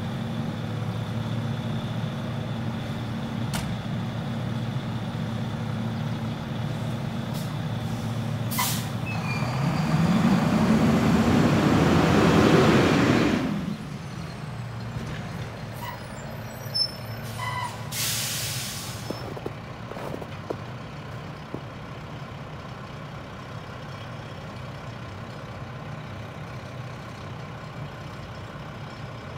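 Mack LR rear-loader garbage truck idling, then a short air-brake hiss as it pulls away and a loud burst of engine acceleration that fades off into the distance. A second, longer air-brake hiss follows from farther off, then a low distant engine hum.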